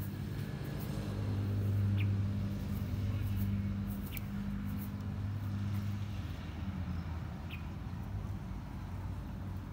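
A steady low machine hum runs throughout, with short high chirps every two to three seconds.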